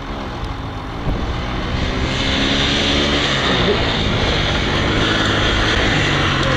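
Large diesel engine of a Terra-Gator three-wheeler running hard under throttle, getting louder about a second in and rising in pitch as the machine comes in.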